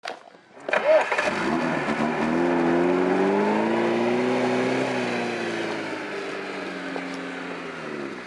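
Lada Niva 4x4 engine revving hard as the car pulls away through mud, starting suddenly about a second in. The pitch climbs over the next couple of seconds, holds, then slowly falls and fades as the car moves off.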